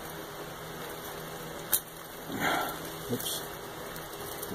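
Handling of 3D-printed plastic bracket parts: a single sharp click a little under two seconds in, then a short scraping burst and a second softer click. A brief low voice-like sound comes around three seconds, over a steady low hum.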